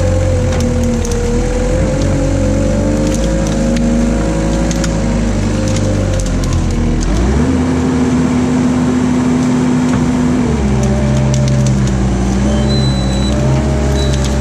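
Knikmops KM 180 TE articulated mini loader's engine and hydraulics running under load as the tree clamp grips and drags brush, with branches snapping and crackling. About seven seconds in the engine note rises and holds steady for about three seconds, then drops back.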